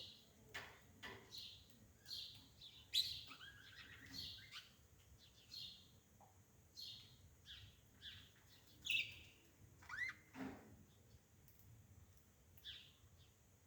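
Birds chirping repeatedly in short, high-pitched calls, some of them sliding in pitch, with a few faint clicks among them.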